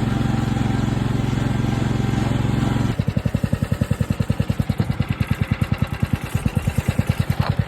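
Riding mower's Kohler engine running steadily, then dropping to idle about three seconds in, where it chugs in even pulses of about ten a second.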